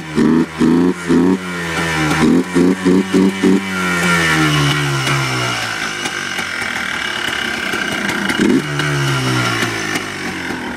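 2001 Yamaha Blaster's single-cylinder two-stroke engine running on a cold start. For the first few seconds it pulses unevenly at about three beats a second, then evens out and the revs sink. About eight seconds in it gets a short blip of throttle, and the revs fall back again.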